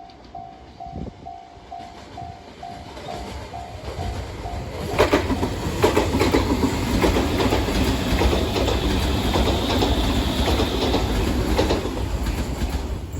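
Japanese level-crossing warning bell ringing in a rapid, even ding-ding that stops about three seconds in. About five seconds in, a Chikuhi Line train passes close by, loud for some seven seconds, its wheels clicking over the rail joints.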